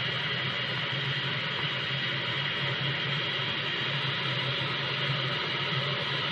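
Hair dryer running steadily, blowing hot air on the frost in a refrigerator freezer to melt it: an even hiss of air over a low motor hum.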